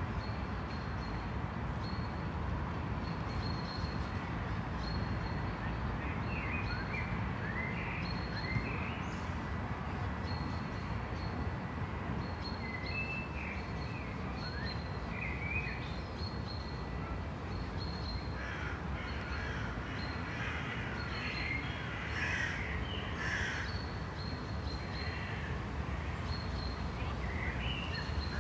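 City ambience: a steady low rumble with birds calling on and off, most often after the middle. A short high chirp repeats about once a second throughout.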